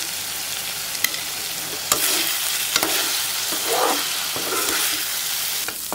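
Marinated chicken pieces sizzling in oil in a pan while being stirred with a spatula, with a few sharp clicks of the spatula against the pan.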